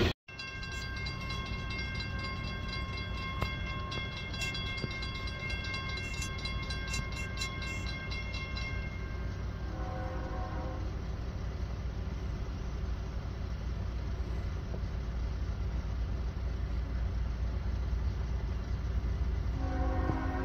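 Diesel locomotive horn sounding one long chord of several notes for about eight seconds. A shorter, lower-pitched blast follows about ten seconds in and another near the end, over the steady low rumble of a train.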